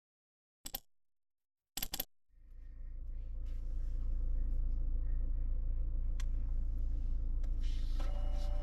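Two short clusters of sharp clicks, then a steady low hum of the running car's cabin fading in. Near the end the Mazda3's slot-loading CD/DVD player starts to whir as a disc is pushed in and drawn into the slot.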